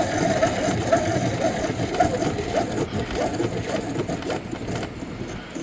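Antique Yale hand-crank key machine being cranked, its cutter grinding into a key blank with a continuous, uneven mechanical rattle that eases off near the end.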